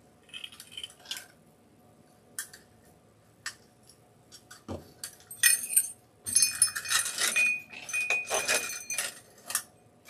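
Wire wreath frame wrapped in chicken wire rattling and clinking as it is handled, with a few light clicks at first, then a denser run of metallic jangling with brief ringing tones in the second half as it is lifted and turned.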